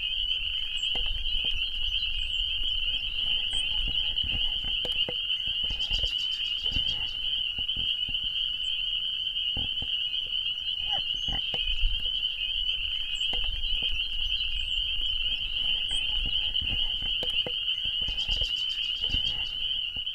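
A dense chorus of frogs calling, one unbroken high-pitched trilling, with a second, faster trill joining twice, about six seconds in and near the end. Occasional low thumps sound beneath it.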